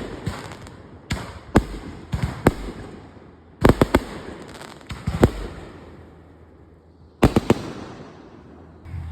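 Sharp bangs and cracks in quick clusters of two to four, coming every second or two, each fading off with a short echoing tail.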